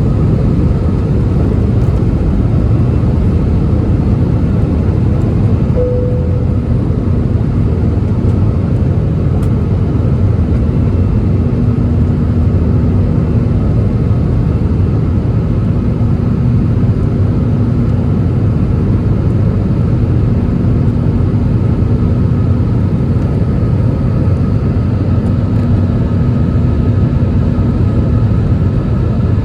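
Airbus A320 jet engine noise, a loud, steady, low-pitched rumble with no rise or fall, with faint steady tones fading in and out.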